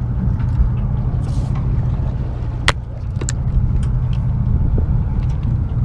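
A charter fishing boat's engine running with a steady low hum, with a sharp click about halfway through and a fainter one just after.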